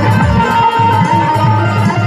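Loud Indian folk-style dance music over a PA loudspeaker, with a steady drum beat and a long held note above it.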